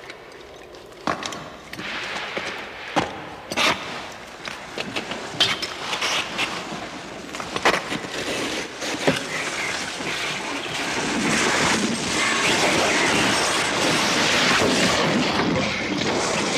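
A caver's climbing gear and boots knocking and scraping on ice and rock: a string of irregular sharp knocks and cracks, then a louder steady scraping rush from about eleven seconds in.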